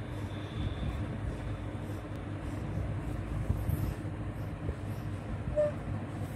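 Steady low hum and rumble, with a few faint light knocks.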